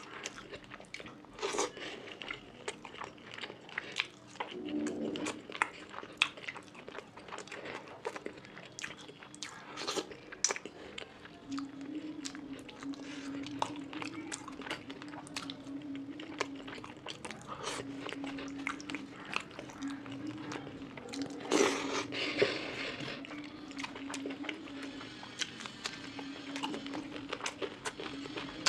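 Close-miked chewing and lip-smacking of a mouthful of fish curry and rice, full of small wet clicks, with a few crunchy bites; the loudest crunch comes about two-thirds of the way through.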